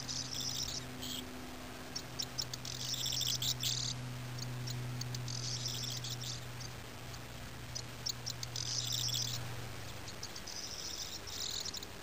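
Corn bunting singing, about five songs a couple of seconds apart. Each song opens with a few separate ticking notes that speed up into a high jangling flourish about a second long. A low steady hum runs underneath.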